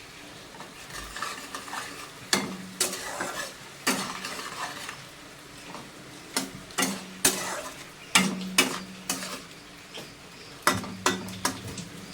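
A khunti (flat spatula) scraping and knocking against a pan as the sizzling tomato-spice masala is stirred, in bursts of a few sharp scrapes every couple of seconds over a low frying hiss.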